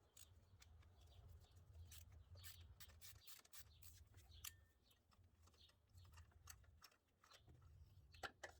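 Faint, irregular clicks of a spark plug socket and ratchet working a spark plug loose and drawing it out of the engine, over a faint low hum.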